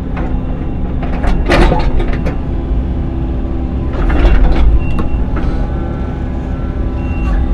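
Excavator engine running steadily, with clusters of clanks and knocks about a second and a half in and again around four seconds in.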